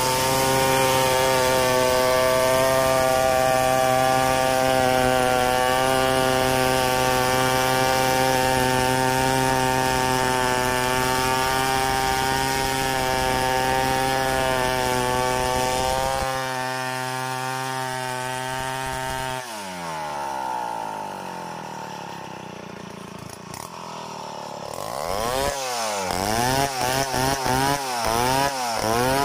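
Stihl 070 two-stroke chainsaw ripping lengthwise through a log, held at steady high revs under load for about sixteen seconds. The revs then fall away and the engine runs quieter for a few seconds. Near the end it revs up and down repeatedly.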